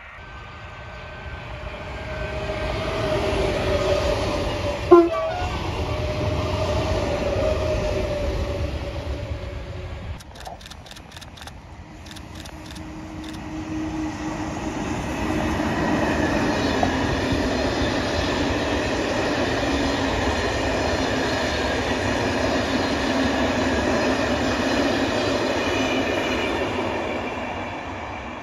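Passenger train hauled by an electric locomotive passing on electrified track: a long steady rumble of steel wheels on rail that fades near the end. Before it comes the rumble of a diesel locomotive, a short horn blast with a falling pitch about five seconds in, and a run of clicks around ten seconds in.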